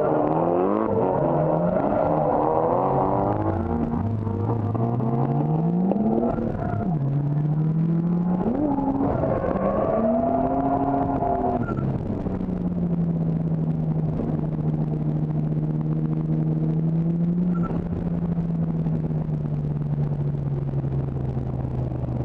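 Drift car engines revving hard up and down, two engine notes at times crossing in pitch. After about twelve seconds the revving gives way to one steady engine note that slowly drops.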